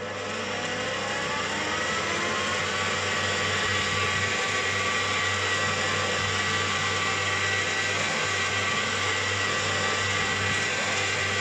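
Einhell BT-TB 13 E Digital bench drill press motor starting up and running. The whine rises in pitch over the first couple of seconds as the spindle comes up to speed, then holds steady.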